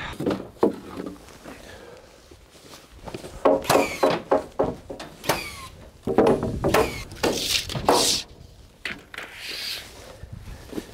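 Irregular knocks, clatters and short squeaks of framing lumber being handled and set down, coming in two bunches of strokes.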